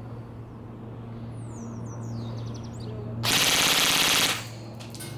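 Rossi Neptune 10 Short electric airsoft rifle (AEG) firing one full-auto burst of about a second, starting about three seconds in. It cycles at about 17 BBs a second on an 11-volt battery.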